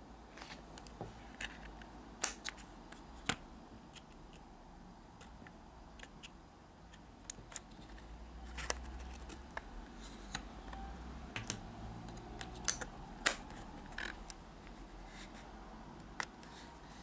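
Scattered small clicks and taps from a Nikon D600 DSLR being handled, its buttons pressed and its body gripped and turned, coming irregularly with a few louder clicks among many faint ones.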